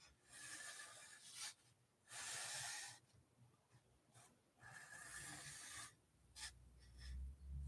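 Sharpie marker drawing strokes on a canvas: three faint strokes of about a second each, with a couple of small clicks near the end.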